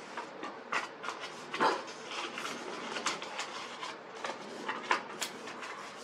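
Paper inserts and cardboard packaging being handled: irregular rustling with scattered light clicks and taps, the sharpest about a second and a half in.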